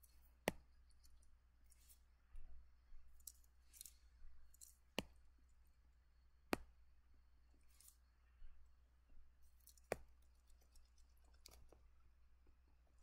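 Quiet clicking and scratching from working a drawing program on a computer: four sharp clicks spread through, with faint scratchy strokes in between as the eraser is selected and dragged across the drawing.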